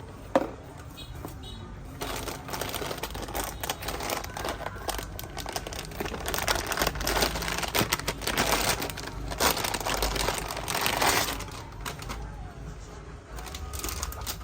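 Crinkling and rustling of packaging being handled, a dense run of irregular crackles from about two seconds in that dies down near the end.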